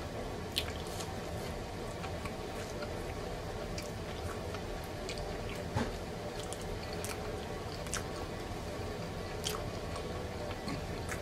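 Close-up chewing and biting of fried catfish nuggets and mac and cheese, with scattered sharp mouth clicks over a steady low background.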